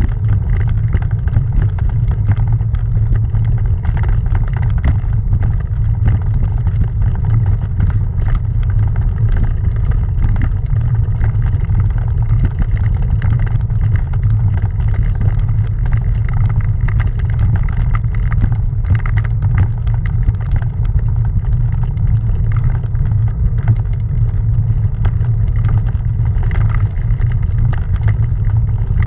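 Road bike rolling over cobblestones, shaking the handlebar-mounted camera: a steady low rumble with a dense, irregular patter of small rattling clicks.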